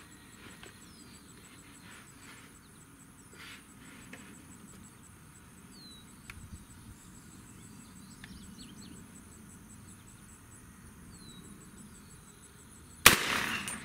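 Faint steady buzzing of insects with a few short chirps, then near the end a single loud rifle shot from a 300 Blackout AR firing a subsonic 178 ELD-X load.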